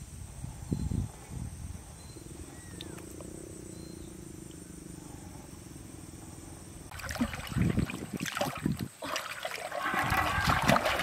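Water splashing and sloshing as a person wades and reaches into a shallow river beside a floating metal basin, starting suddenly about seven seconds in. Before that there are only faint low sounds.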